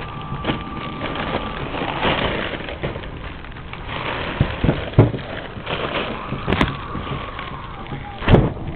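Plastic bags of powdered plaster rustling and crinkling as a hand presses and handles them, with a couple of sharp knocks, one about five seconds in and a louder one near the end.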